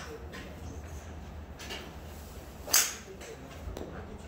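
A golf club head striking a ball off a hitting mat, one sharp crack about two-thirds of the way in. A fainter click comes about a second before it.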